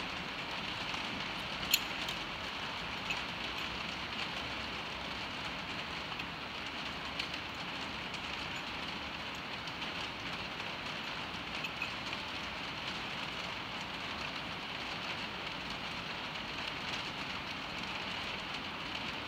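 Steady hiss of rain on a metal roof, with a few sharp clicks from saddle tack being handled and fastened, the loudest about two seconds in.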